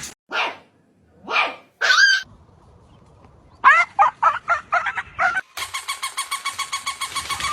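A dog barking and yipping in short separate calls, then a quick run of yips. In the last two seconds a fast, even pulsing at about seven beats a second takes over.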